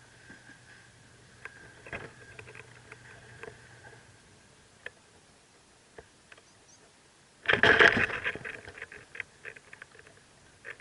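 Rustling and scratching of birds moving in a mockingbird nest close to the microphone, with scattered ticks and a loud burst of scrabbling about seven and a half seconds in, then quick ticks that fade.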